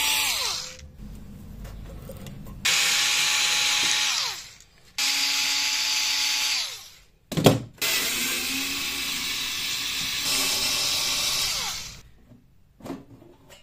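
Power drill-driver backing screws out of a sheet-steel battery case panel. It runs in several bursts of one to four seconds, each a steady whine that winds down as the trigger is let go, with a sharp knock about seven seconds in.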